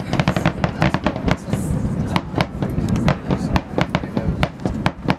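Aerial fireworks going off in quick succession: a dense run of sharp bangs and crackles, several a second, over a continuous low rumble.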